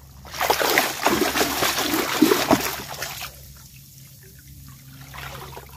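A large basket swept through shallow water among leaves, splashing for about three seconds. Then water trickles and drips out of the lifted basket.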